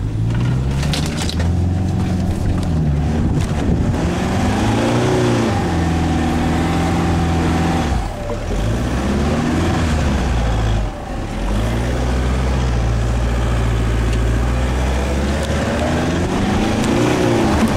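Toyota Land Cruiser Prado 120's engine driving the SUV through deep sand, heard from inside the cabin. It runs loud and steady, with the revs rising and falling several times and two brief dips in between.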